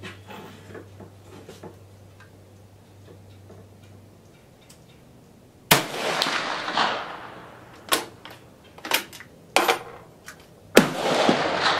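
A 6.5mm Carcano M38 short rifle fires once about six seconds in, the report ringing on for over a second. A few sharp metallic clicks follow as the bolt is worked, and another loud gunshot with a long echo sounds near the end.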